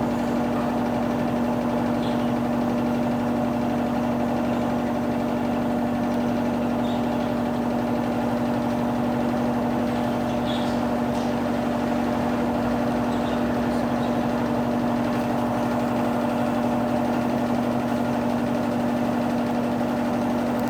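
Electrolux Turbo Economia 12 kg top-loading washing machine running: a steady motor hum at a constant pitch that holds unchanged throughout.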